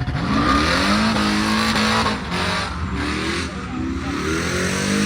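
Car engine revving hard: the pitch climbs in the first second, holds high, drops about three seconds in and climbs again in steps. A hiss of tyre noise runs under the first half.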